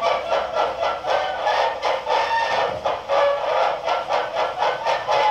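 Pathé Model 0 cylinder phonograph playing a standard-size cylinder through its metal horn: a thin, tinny acoustic reproduction with no bass, the recording pulsing in an even beat about two and a half times a second.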